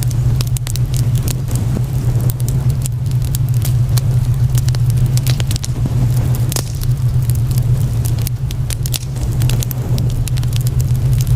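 Fire crackling, with frequent sharp pops and snaps over a loud, steady low hum.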